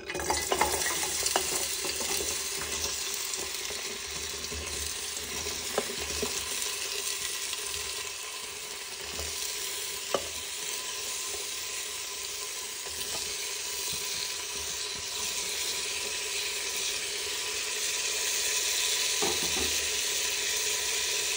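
Chopped vegetables sizzling as they go into hot oil in a pressure cooker: a steady frying hiss that starts suddenly, with a few sharp clicks of a spoon against the pot as they are stirred.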